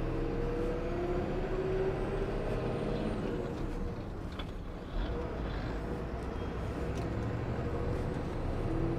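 Lorry's diesel engine running as it drives along, laden with a 20-tonne excavator. It is a steady low rumble with engine tones that shift slowly in pitch, and the rumble steps up about five seconds in.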